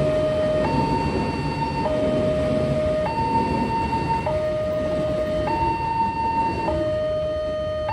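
Railway level-crossing barrier alarm sounding a two-tone hi-lo siren, switching between a higher and a lower tone about every 1.2 seconds, over a low background rumble. The alarm warns that a train is approaching and the barrier is closing.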